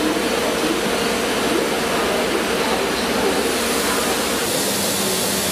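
Steady rushing noise inside a passenger railway coach, typical of the train running. Near the end the low rumble drops away and a steady low hum comes in.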